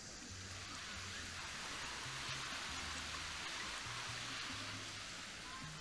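Small waves washing onto a sandy beach: a steady surf hiss that swells a little in the middle, with a faint low hum underneath.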